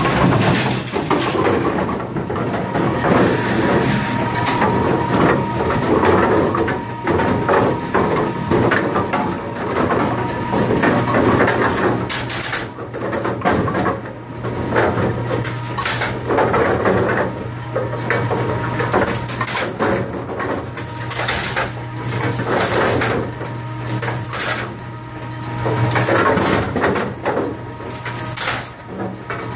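Bowling pinsetter machine running: a steady low motor hum under continuous clattering and knocking of pins against metal as the pins are lifted, carried along the conveyor and dropped into their setting positions.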